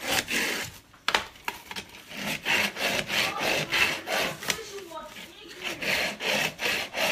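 Small pumpkin-carving saw sawing back and forth through a pumpkin's rind, about two to three rasping strokes a second, with a short pause about a second in.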